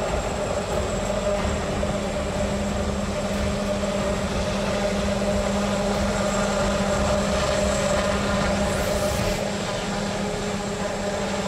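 Sikorsky-Boeing Defiant compound helicopter in flight, its coaxial rotors, pusher propeller and engines making a steady drone with a constant hum under the noise.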